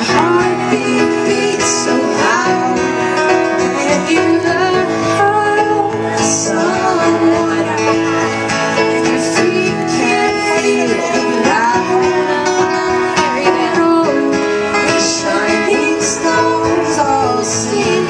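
Live band music with keyboards and guitar playing steadily.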